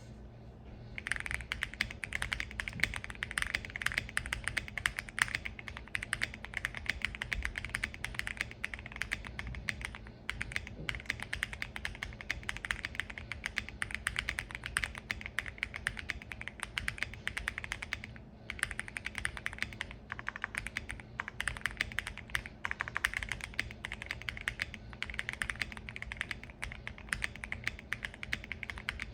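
Continuous fast typing on a Monsgeek M1 mechanical keyboard with lubed Akko POM Silver linear switches, tape-modded, no case foam and lubed stock stabilizers, under CannonCaps Esper keycaps. Rapid key clicks start about a second in, with brief pauses twice.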